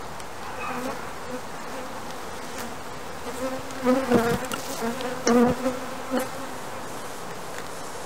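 Honeybees buzzing around an open hive, with single bees flying close past the microphone. The buzz comes and goes and is loudest about four and five and a half seconds in.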